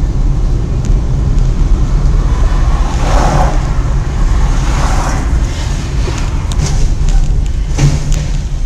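Loud, steady low rumble of a moving car picked up by a dashcam: engine and road noise. There are brief louder swells about three and five seconds in, and a short thump near the end.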